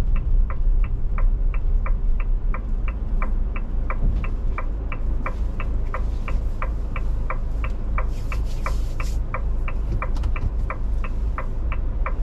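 Motorhome's turn indicator ticking steadily, about three ticks a second, over the low rumble of the idling engine inside the cab. A brief hiss comes about eight seconds in.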